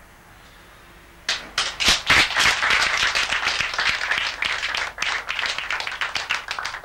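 A small audience applauding: quiet for about a second, then many people start clapping at once and keep clapping.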